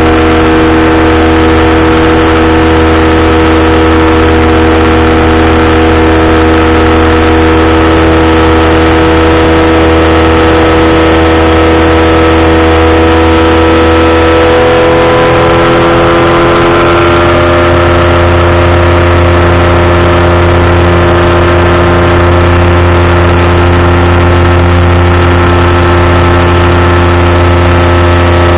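Powered parachute's engine and propeller running steadily and loud in flight. The pitch creeps up slightly about halfway through as the revs rise a little, then holds.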